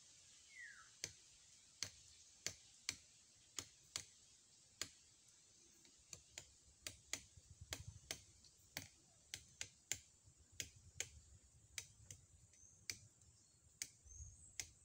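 Bolo knife striking a palm trunk, a series of sharp, irregular chops about one or two a second.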